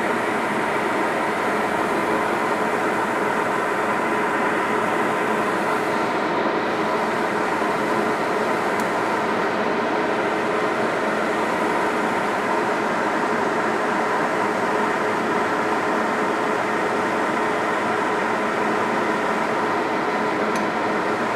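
Large steel pot of hot-pot soup at a hard boil on the stove: a steady rushing noise with a faint hum through it.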